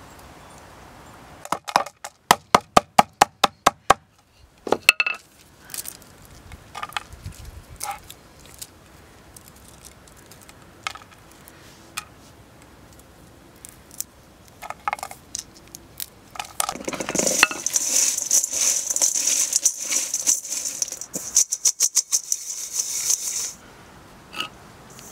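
Dried plant pieces cracking and snapping as they are broken by hand on a wooden board: a quick run of about ten sharp cracks a couple of seconds in, then scattered single snaps. From about the middle, a dense rattling rustle of the dry pieces going into a steel bowl lasts several seconds.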